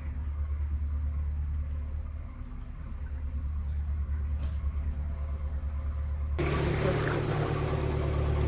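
Narrowboat diesel engine running steadily under way, with a low, even beat. About six seconds in, the sound abruptly becomes louder and brighter.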